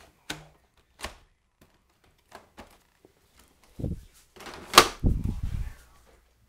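Handling noise from a Dyson DC14 upright vacuum's wand and hose: scattered plastic clicks, then a few knocks and a loud sharp clack about five seconds in, followed by a brief low rumble.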